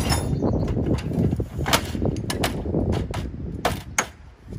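Metal clicks and clacks from a Beta folding tool trolley as its handle frame is folded down, with several sharp snaps scattered through the second half.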